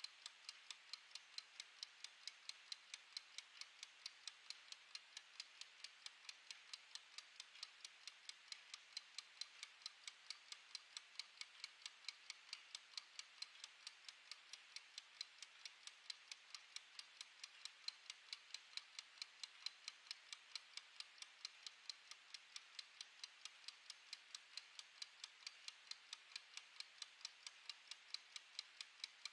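Wind-up mechanical kitchen timer's clockwork ticking as it counts down: a faint, fast, perfectly even run of sharp ticks, several a second.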